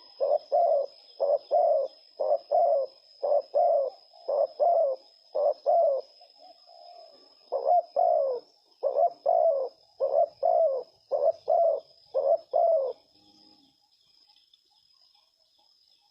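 Spotted dove cooing: a long run of paired coos repeated about once a second, with a short pause near six seconds, stopping about thirteen seconds in. A faint steady high-pitched tone runs underneath.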